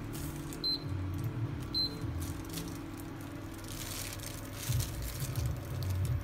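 Plastic bag glove rustling while a floured soft-shell crab is handled and set into a pan of oil, over a steady low hum. Two short, high blips come about a second apart early on, and a stretch of hiss comes in about four seconds in.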